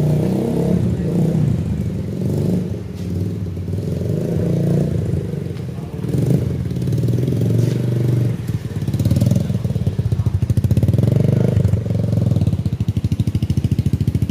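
Rusi Korak motorcycle engine running through its exhaust pipe. The revs rise and fall for the first half, then settle into a steady, even exhaust beat from about eight seconds in.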